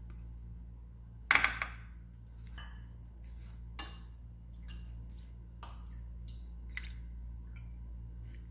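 Milk poured from a cup into a ceramic bowl of arrowroot powder, with crockery clinking: one loud clink about a second in, then a few lighter knocks of cup and spoon against the bowl. A steady low hum runs underneath.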